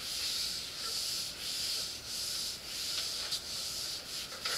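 A felt whiteboard eraser being wiped back and forth across a whiteboard: a run of dry, hissing rubbing strokes, about two a second.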